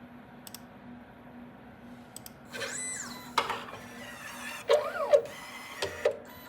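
Small stepper motors whining in several short runs, each pitch rising and then falling as the motor speeds up and slows down. A few sharp clicks come between the runs.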